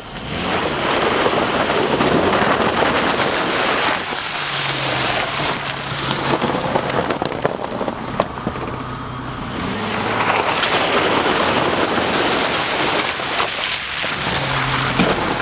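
Off-road vehicle driving through muddy puddles: water and mud splashing and spraying in surges over a steady low engine note.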